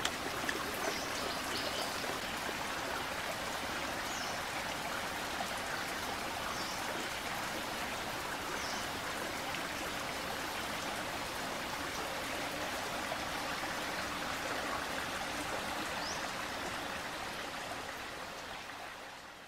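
Small rocky creek flowing and trickling steadily over stones, with a few short high chirps. The water sound fades out near the end.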